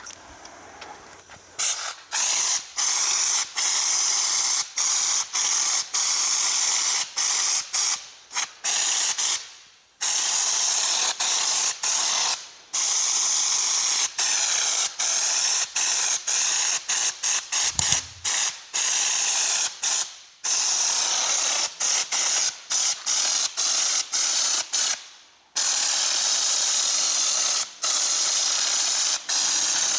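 Compressed-air spray gun with a screw-on bottle spraying a textured, fine-grit coating at about 4 bar: a loud hiss in repeated spurts, cut off for a moment each time the trigger is let go, with a few longer pauses. A brief low knock sounds a little past the middle.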